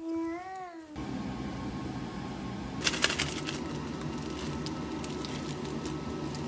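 A cat meows once, a short rising-and-falling call. Then, over a steady low hum, a burst of crackling about three seconds in and lighter crackles as dried flakes from a seasoning packet are shaken into a pot of water.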